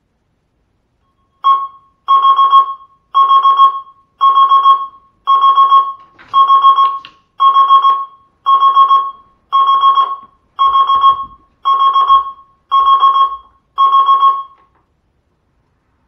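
Electronic alarm beeping, about one burst a second, each burst a fast string of high beeps on one pitch. Thirteen bursts, then it stops.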